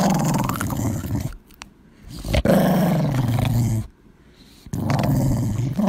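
Small white chihuahua growling in three long growls, the second sliding down in pitch.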